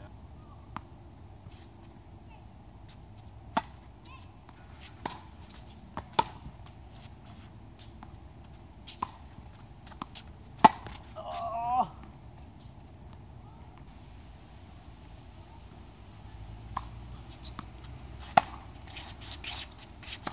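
Tennis balls struck by rackets and bouncing on a hard court: single sharp pops every few seconds, over a steady high drone of insects that stops about two-thirds of the way through. Near the middle, a brief pitched sound swells up just after one of the loudest hits.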